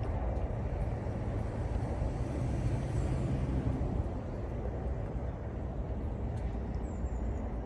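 Steady low outdoor rumble, with two faint high chirps about three seconds in and near the end.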